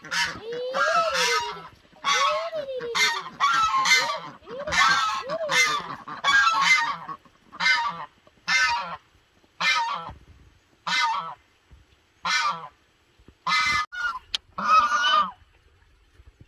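Domestic geese honking loudly over and over, the calls close together at first, then about one a second, stopping shortly before the end.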